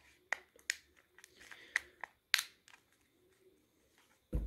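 Plastic clicks and taps from handling an old flip phone, its battery cover being pressed and snapped onto the back: a string of short sharp clicks, the loudest about two and a half seconds in. A dull thump near the end.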